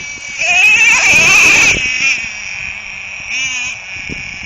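A nitro glow-plug engine in a custom-built RC truck revving hard. Its high-pitched whine climbs in pitch from about half a second in and drops off just before the two-second mark. A shorter, wavering rev follows a little past three seconds.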